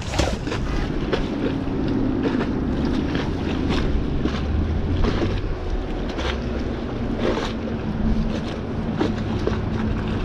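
Wind buffeting the microphone over a steady low hum, with repeated short rustles and scrapes as the magnet-fishing rope is hauled in hand over hand across a wooden railing.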